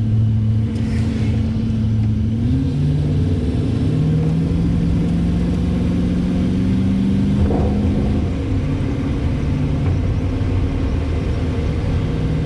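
1970 Chevrolet C10 pickup's engine running under way. The engine note steps up about two and a half seconds in, climbs slowly, then drops back about eight seconds in.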